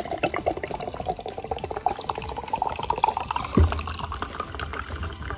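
Fizzy canned lemon sour pouring from an aluminium can into a glass, gurgling, its pitch rising steadily as the glass fills. A single dull knock about three and a half seconds in.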